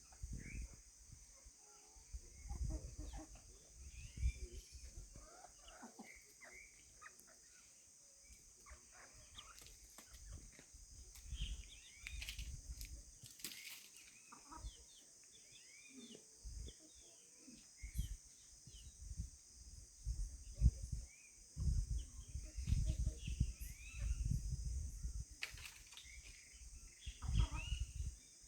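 Farmyard birds and chickens calling in many short chirps and clucks, over a steady high hiss, with repeated bursts of low rumble that grow stronger in the second half.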